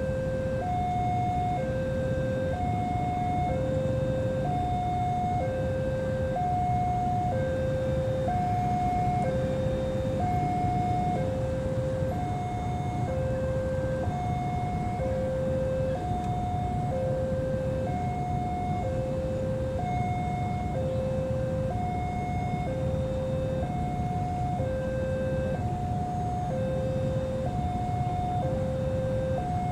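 Railway level-crossing warning alarm sounding its two-tone ding-dong, a higher and a lower tone alternating at about one a second, over a steady low rumble.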